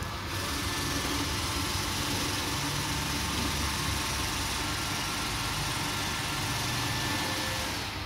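iRobot Roomba 880 robot vacuum running its cleaning motors: a steady whirring hiss that starts just after the beginning and cuts off near the end.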